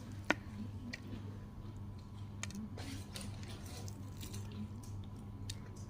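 Someone eating McDonald's fried chicken close to the microphone: quiet chewing with soft squishes and small clicks, and one sharp click a fraction of a second in, over a steady low hum.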